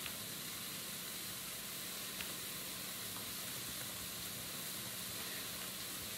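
Ground beef sizzling steadily as it fries in a pan, with a faint click about two seconds in.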